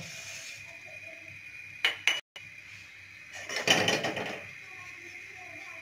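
Sugar poured from a cup into a steel pot of water, with a few light clicks of the cup on the pot just before two seconds in and a louder rustling, splashing pour lasting about a second from about three and a half seconds in.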